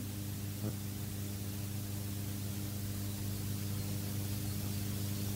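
Steady low electrical hum with a constant hiss, with one faint click about two-thirds of a second in.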